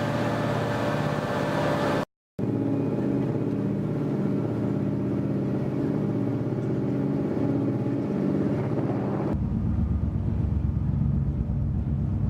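Engine running steadily, broken by editing: a brief dead silence about two seconds in, and an abrupt switch to a deeper, lower engine sound about nine seconds in.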